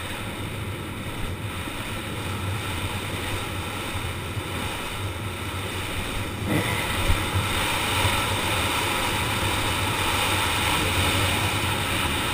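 KTM 300 XC two-stroke dirt bike engine running while riding a dirt trail, mixed with wind rushing over the camera microphone. It gets louder about halfway through, with a thump around the same moment.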